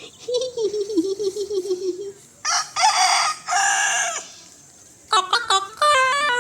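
Chicken calls: a wavering run of clucks, then two loud, harsh crowing calls, then a quick stepped series of cackling notes starting about five seconds in.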